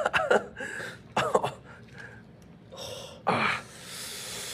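A person gasping: a few short voiced 'oh'-like sounds early on, then a loud breathy gasp a little past three seconds and a drawn-out hissing breath, as in a pained reaction to the hair tearing the skin.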